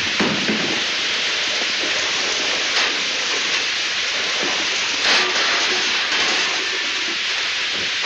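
Steady hiss of water spraying under pressure out of a kitchen stove's burners, with a few short bumps.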